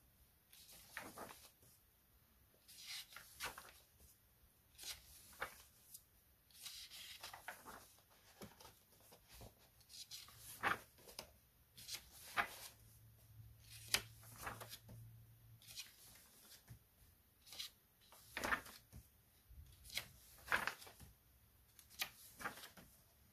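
Pages of a paperback colouring book being turned by hand one after another: more than a dozen soft, quick paper swishes and flaps, a second or two apart.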